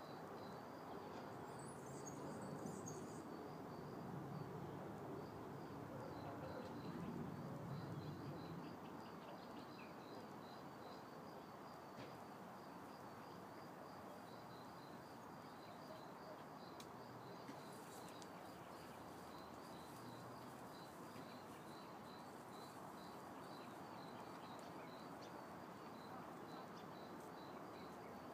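Faint outdoor quiet with a cricket chirping in steady, evenly spaced high chirps that come in runs, and a bird giving a few brief higher chirps about a second or two in. A soft low rumble lies under the first eight seconds or so, then fades.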